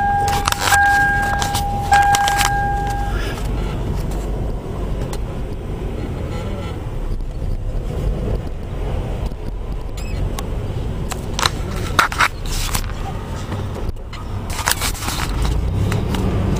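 Inside a car: a steady electronic warning tone, broken by short gaps, sounds for the first few seconds and then stops, over a low engine and road rumble. Clicks and rattles of handling come in small clusters, one near the start and two more a few seconds before the end.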